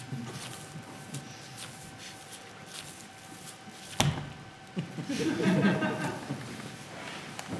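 A single sharp knock about four seconds in, then about a second and a half of a wavering voice-like sound, over a faint steady hum.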